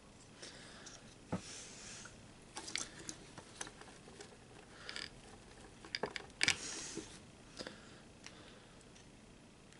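Scattered light clicks, taps and short scrapes as small metal parts of a throttle body are handled and worked apart by hand, with a sharper knock about six and a half seconds in.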